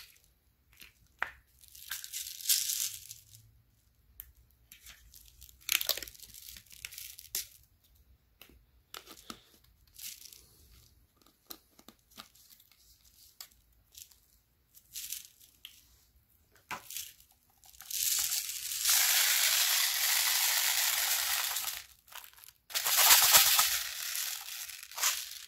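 Copper BBs pouring from a Crosman BB bottle's red spout into a Crosman Quick Reloading High Capacity BB Magazine, a steady rushing rattle lasting about four seconds near the end, then a second shorter pour. Before that come scattered clicks and rustles as the bottle and magazine are handled.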